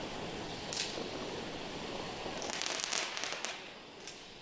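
Fireworks crackling: a short crackle about a second in, then a dense run of sharp crackling cracks around the three-second mark, with one last small crack near the end, over a steady background hiss.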